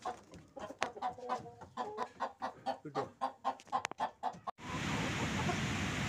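Aseel chicken clucking in quick, repeated short calls, about four a second. About four and a half seconds in the clucking cuts off and gives way to a steady hiss of background noise.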